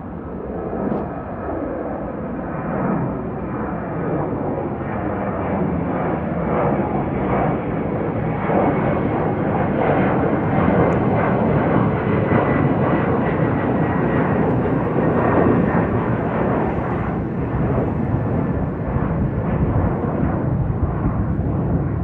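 Jet roar from an Embraer ERJ regional jet's twin turbofan engines, growing louder over the first several seconds and then holding steady.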